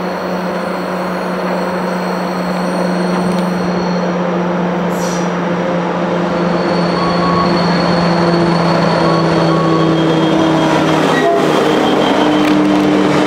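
Pair of 82 class diesel-electric freight locomotives approaching and passing close by. The engine drone grows steadily louder as they near, and its pitch drops as the lead unit goes past about eleven seconds in.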